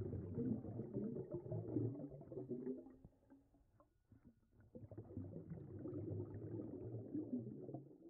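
Muffled underwater rumbling and gurgling of moving water, with faint crackles, swelling twice with a lull between.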